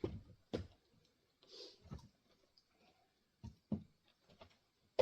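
Pieces of split grand fir firewood knocking dully as they are set and stacked in a pickup bed, about six knocks at uneven intervals.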